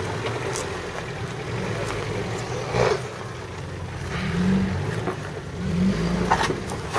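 Engine of a small Suzuki four-wheel-drive running at low speed as it crawls over rocks, rising briefly in revs twice in the second half. A sharp knock comes about three seconds in and another near the end.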